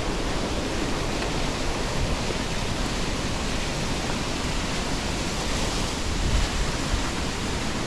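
Steady rushing of a large waterfall and river, an even roar with no breaks.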